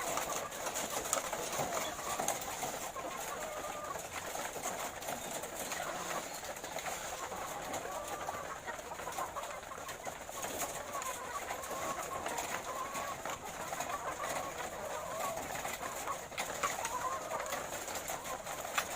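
A flock of laying hens calling over one another, with many overlapping short notes that bend in pitch and occasional sharp clicks.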